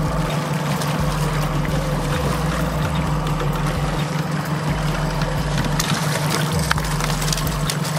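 Boat motor running steadily at low trolling speed, a constant low hum, with water trickling and lapping around the hull. A hooked striped bass splashes at the surface about six seconds in as it is brought to the net.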